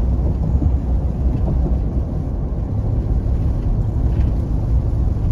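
Steady low rumble of a car driving on the highway, tyre and road noise with the engine, heard from inside the cabin.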